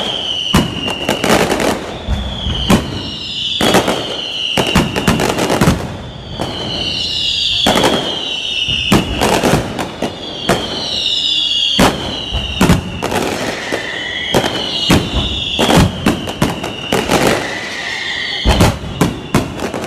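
Fireworks display: a rapid, continuous series of sharp bangs and crackles, overlaid with shrill whistling shells whose whistle slides slightly downward, one after another about every second or so.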